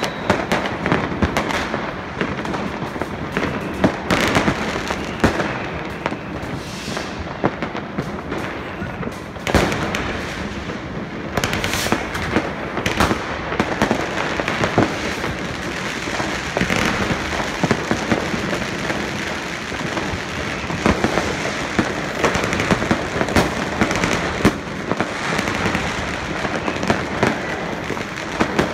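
Fireworks going off all around: rockets and firecrackers crackling and popping without a break, with a few louder bangs standing out, the strongest about a third of the way in.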